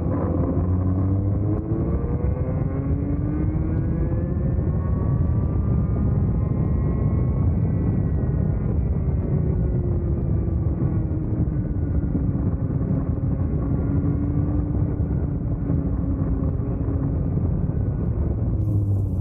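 Vortex Mini ROK 60cc two-stroke kart engine at full throttle out of a corner, its pitch climbing for about eight seconds as the kart gathers speed. The pitch then falls steadily as the kart slows for the next corner.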